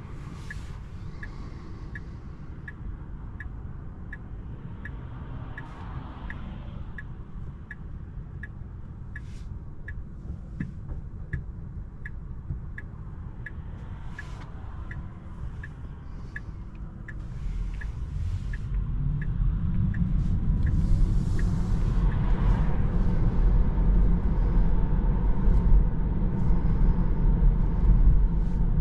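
Inside a Tesla Model 3's cabin, the turn-signal indicator ticks about twice a second while the car stands still, and stops a little past halfway. Then the low rumble of tyre and road noise grows louder as the electric car pulls away and gathers speed.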